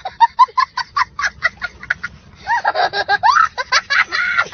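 A young child laughing hysterically: a quick run of short, high-pitched 'ha' bursts, then from about two and a half seconds in longer squealing laughs that rise and fall in pitch.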